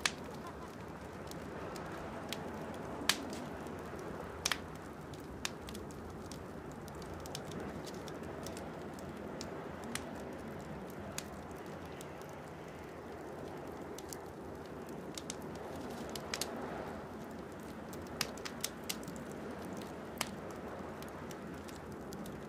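Small twig campfire crackling, with sharp irregular pops every second or few over a steady low rushing background.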